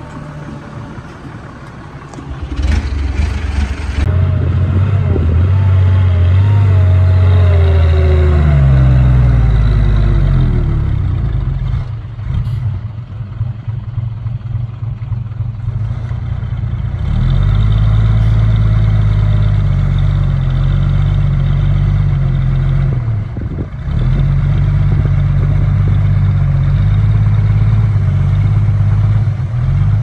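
Small Komatsu crawler bulldozer's diesel engine working under load. It picks up about two seconds in and shifts pitch for several seconds, eases off for a few seconds in the middle, then runs loud again, with a short dip about three quarters of the way through.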